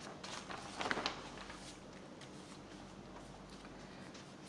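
Quiet room tone with a faint steady low hum, and a brief soft noise about a second in.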